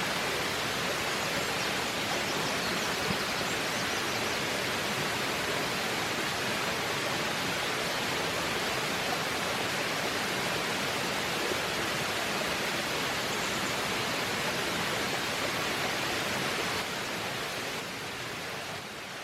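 Waterfall: a steady, even rush of falling water, a little quieter in the last couple of seconds.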